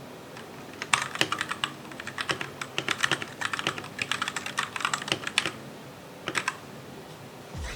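Keys being typed on a Royal Kludge RK G68 mechanical keyboard: a quick, uneven run of key clicks for about four and a half seconds, then a couple more keystrokes a second later.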